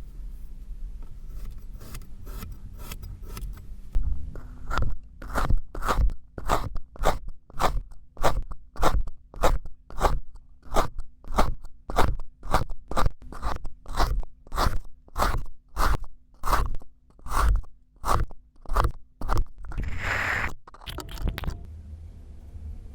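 Kinetic sand crunching in a regular run of strokes, nearly two a second, after a few fainter ones. A longer scrape comes near the end.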